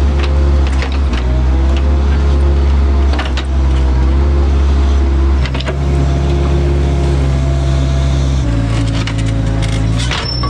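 Excavator's diesel engine running under load while digging in clay, its note shifting a couple of times as the hydraulics work, with scattered knocks and scrapes from the bucket.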